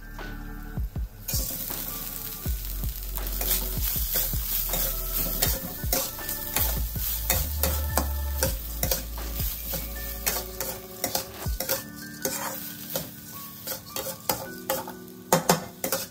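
Drained glutinous rice frying in hot oil in a wok, breaking into a sizzle about a second in, while a metal wok spatula stirs it, scraping and clicking against the pan.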